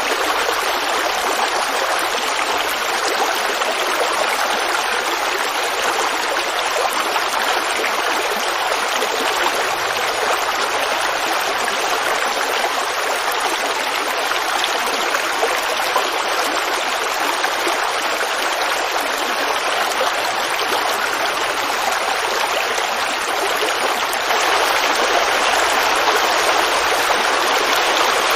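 Creek water babbling and running steadily over stones, an even rushing with no breaks, getting slightly louder near the end.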